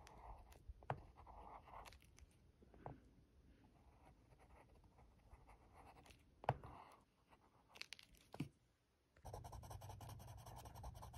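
Colored pencil drawing on sketchbook paper: faint scratching strokes broken by a few sharp ticks, the loudest about six and a half seconds in. About nine seconds in it changes to denser, steadier scratching over a low hum.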